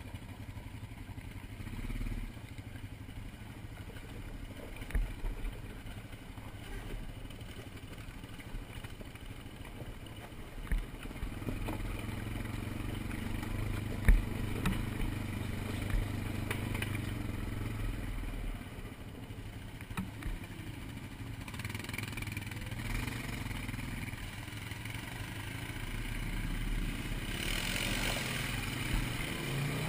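ATV engine running steadily while the quad rides a trail, growing louder from about a third of the way in, with scattered knocks and clatter.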